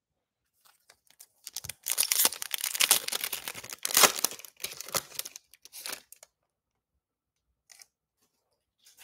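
Foil wrapper of a Panini Prizm Draft Picks card pack being torn open by hand: about four seconds of ripping and crinkling of the foil.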